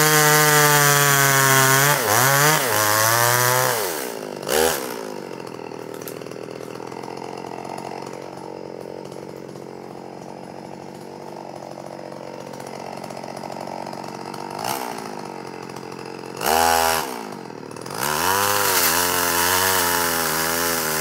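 Chainsaw running at high revs, then dropping to a quiet idle for about twelve seconds with two short blips of throttle. It revs hard again briefly, then from a few seconds before the end runs loud with its pitch wavering under load, as when bucking an oak trunk into firewood.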